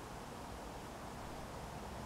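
Wind rustling through the leaves of garden shrubs and trees: a steady, even hiss with a low rumble underneath.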